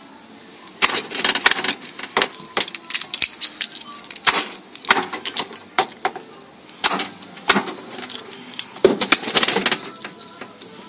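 Irregular clatter of sharp clicks and rattles in clusters, from about a second in until near the end: a keychain with a remote jangling and being handled against the truck door.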